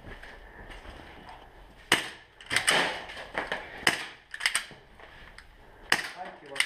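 Airsoft guns firing single shots: about eight sharp cracks in irregular succession, some in quick pairs.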